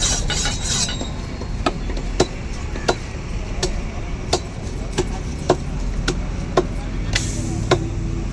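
Sharp knocks repeating about every two-thirds of a second, a dozen or so in all, over a steady background of traffic and market noise.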